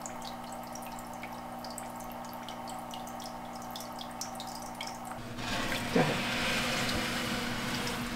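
Small aquarium filter running on a temporary goldfish tank: a steady motor hum with water dripping and trickling back into the tank. About five seconds in, a louder rush of splashing water starts, with a single knock a second later.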